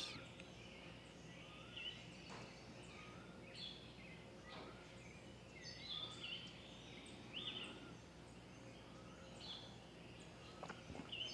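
Faint birds calling in the background: short chirps and whistles every second or so over a low steady hum.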